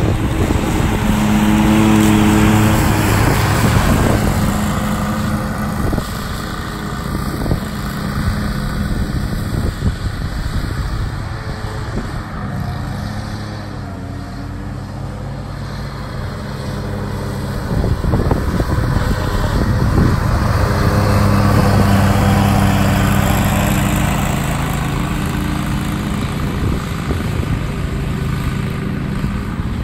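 Exmark zero-turn riding mower's engine running as it mows the lawn, a steady hum that is loudest as the mower passes close near the start and again after about twenty seconds, and fades as it drives away in the middle.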